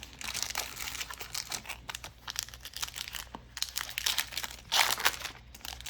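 Foil wrapper of a Pokémon Burning Shadows booster pack crinkling and tearing as it is opened by hand, with a louder burst of crinkling near the end.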